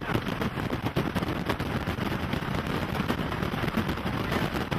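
Strong storm wind buffeting the microphone: a loud, rumbling, crackling blast of noise.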